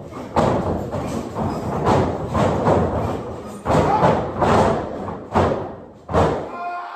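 About a dozen heavy thuds at an uneven pace, roughly two a second: bodies slamming onto a wrestling ring. Music begins faintly near the end.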